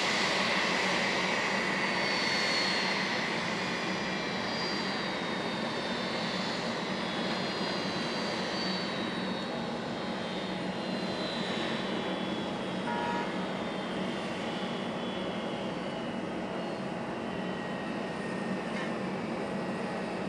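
Airbus A319's jet engines spooling down at the gate, a steady rumble under high whines that fall slowly in pitch as the engines wind down after shutdown.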